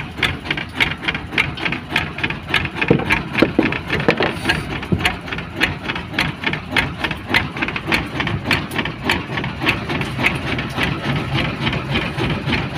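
Fishing boat's engine idling, a steady run of even knocking beats about three a second.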